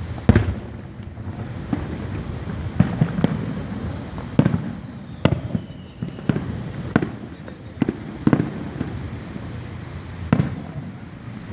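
Aerial fireworks shells bursting: a series of about a dozen sharp booms at uneven intervals, roughly one a second, the loudest just after the start.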